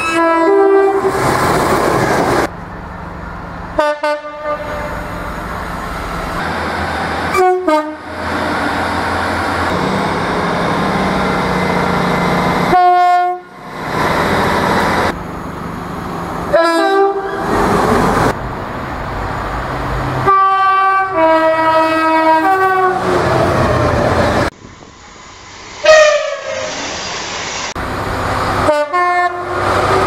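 British diesel trains, among them a Class 66 freight locomotive, sounding two-tone horns again and again as they pass, with the rumble and rattle of the trains on the track between the blasts. Several separate passes follow one another with abrupt cuts, and most of the horn calls are short high-and-low two-note blasts.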